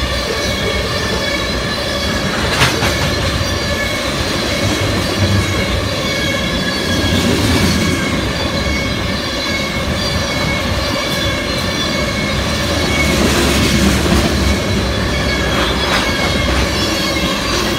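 Freight train of oil tank cars rolling past: a steady rumble of steel wheels on rail with a high, held wheel squeal and occasional sharp clicks.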